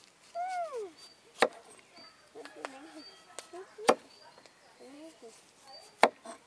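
Three sharp chopping blows, about two and a half seconds apart.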